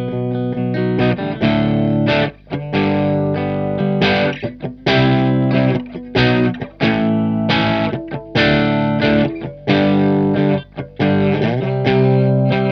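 Electric guitar playing a riff of overdriven strummed chords, cut by short stops, through a Stoy Sound Choir Boy analog bucket-brigade chorus pedal with a Boss BD-2 Blues Driver as overdrive.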